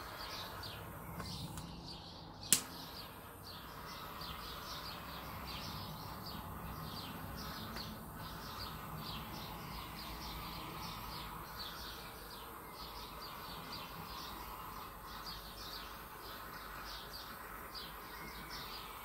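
Small hand-held torch passed over wet acrylic paint to bring up silicone cells, giving a faint steady hiss. A sharp click comes about two and a half seconds in, and quick high chirps repeat throughout.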